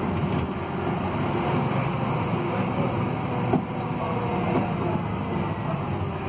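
Scania K280UB city bus heard from inside the passenger cabin while driving: a steady hum from its DC09 280 hp engine and ZF Ecolife automatic gearbox mixed with road noise. A single sharp knock about three and a half seconds in.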